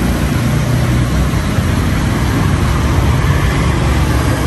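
Steady roadside traffic noise: a continuous rumble of passing vehicle engines.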